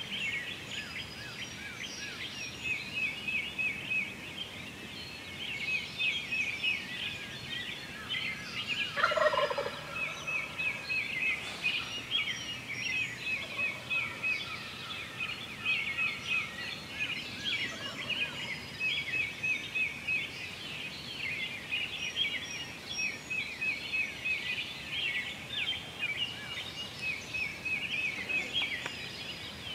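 A wild turkey gobbler gobbles once, loud and close, about nine seconds in, over a steady chorus of small songbirds chirping.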